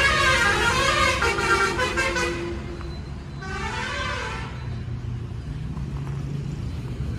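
A vehicle horn sounding twice, a long wavering blast and then a shorter one, its pitch rising and falling, over a steady low engine hum.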